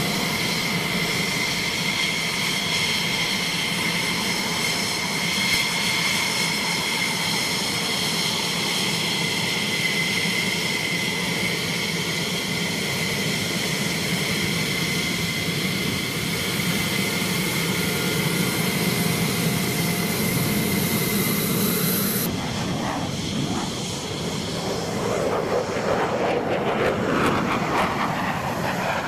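F-16C Block 52 Fighting Falcon's turbofan engine whining steadily at low taxi power, with high, level whistling tones over a broad rush. After a sudden change about 22 seconds in, the whine gives way to the broad rushing noise of an F-16 climbing out after takeoff, swelling near the end.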